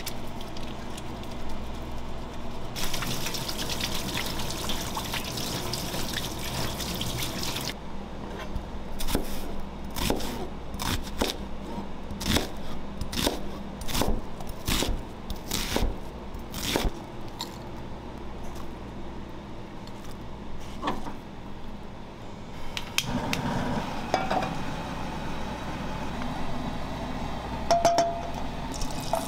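Tap water running over hands at a steel kitchen sink, then a chef's knife chopping an onion on a cutting board in a run of sharp chops, about two a second. Near the end, butter begins to sizzle in a frying pan.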